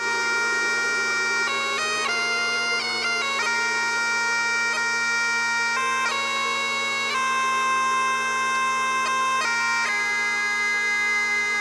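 Intro music: a bagpipe melody played over a steady, unbroken drone, its notes stepping from pitch to pitch.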